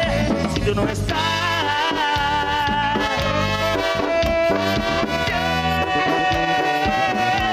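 Instrumental break of a banda ballad: trumpets, trombones and saxophone playing long held melody notes over bass and drums, with no singing.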